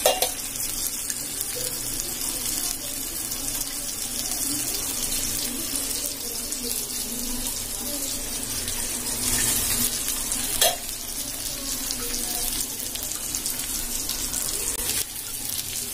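Masala-coated fish steaks shallow-frying in oil on a tawa, on their second side: a steady sizzle, with one sharp knock about ten and a half seconds in.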